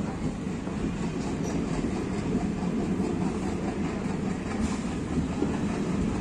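Indian Railways passenger train departing from the station, its coaches rolling along the rails with a steady low rumble.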